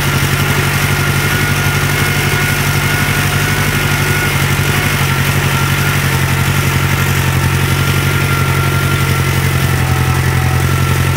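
Four-wheeler (ATV) engine running steadily while driving slowly, heard from the seat, with a thin steady whine above the engine hum.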